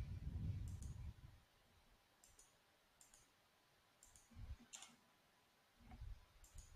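Near silence: room tone with a few faint, scattered clicks and some soft low bumps.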